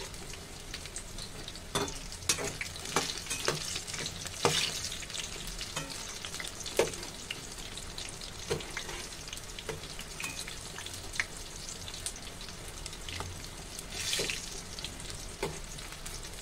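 Oil sizzling steadily as battered jackfruit pakoras deep-fry in a kadhai. Scattered sharp clinks and scrapes come from the wire spider strainer and slotted steel spatula against the pan.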